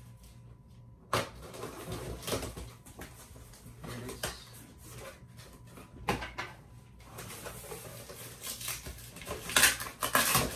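Cardboard shipping box being opened and handled: flaps pulled and rustling, with a couple of sharp knocks and a louder burst of rustling near the end.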